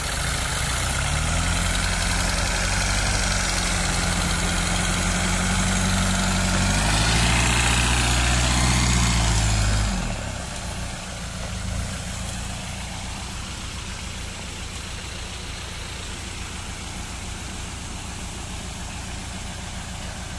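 Small homemade tractor's engine working hard in deep mud, held at raised revs and pushed higher around seven seconds in. About ten seconds in it drops back and idles steadily.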